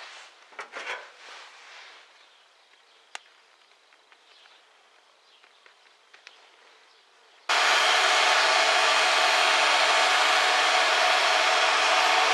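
Faint handling rustles and a single click, then an electric power tool's motor cuts in abruptly about two-thirds of the way through and runs loud and steady with a constant hum.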